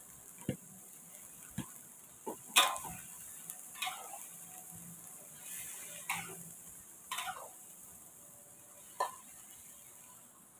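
Metal spatula scraping and clinking against a wok as noodles are tossed and mixed, in eight or so separate strokes, the loudest about two and a half seconds in. A steady faint sizzle of the frying runs underneath.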